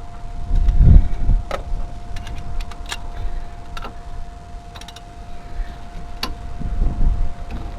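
Hand tools on the 15mm bolts of a van's rear brake caliper: scattered metallic clicks and knocks, with low rumbling handling noise about a second in and again near the end. A steady faint high hum runs underneath.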